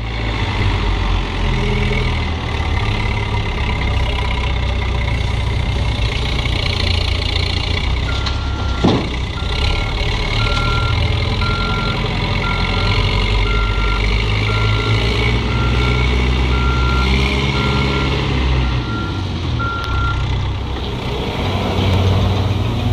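Heavy construction machine's engine running steadily under a reversing alarm. The alarm starts about eight seconds in and beeps evenly in a single high tone for about twelve seconds. One brief sharp sound comes about nine seconds in.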